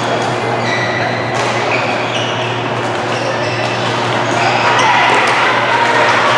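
Busy badminton hall ambience: a steady din of distant voices with a few sharp racket-on-shuttlecock hits and short shoe squeaks from the courts, echoing in the large hall.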